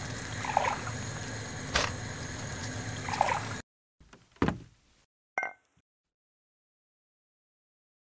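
Gas stove burner hissing steadily under a pot, with a sharp tap about two seconds in and two soft scooping sounds as ground coffee is spooned in; the hiss cuts off abruptly. A soft thump and a brief clink follow, then silence.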